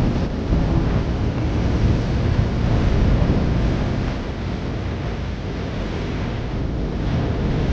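Wind buffeting the microphone outdoors: a loud, uneven low rumble with a hiss over it.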